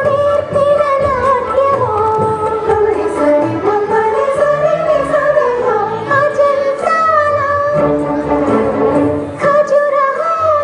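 Recorded Telugu film song playing: a sung melody with gliding, held notes over instrumental accompaniment.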